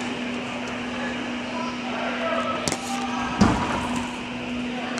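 Indoor soccer arena ambience: a steady hum under faint, distant voices, with two sharp knocks a little under a second apart just past the middle, the second one a heavier thud.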